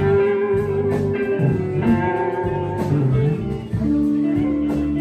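Blues guitar music between sung lines: plucked guitar notes with several long held tones.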